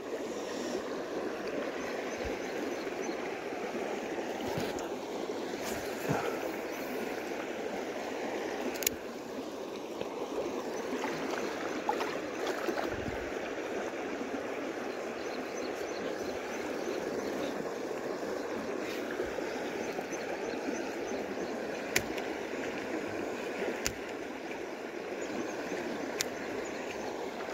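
Steady rush of moving creek water, with a few sharp faint clicks.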